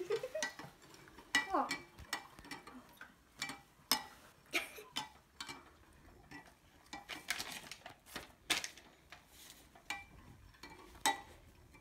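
A metal spoon stirring liquid jelly in a glass Pyrex measuring jug, clinking sharply against the glass over and over at irregular intervals.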